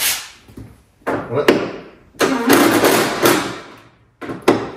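Cordless drill driving a socket in several short bursts on the VW T5 tailgate's bolts, the longest about a second and a half, with knocks of metal in between.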